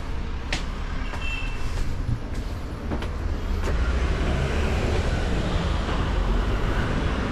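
Low, steady rumble of a motor vehicle running nearby, with a few short knocks, growing louder about four seconds in.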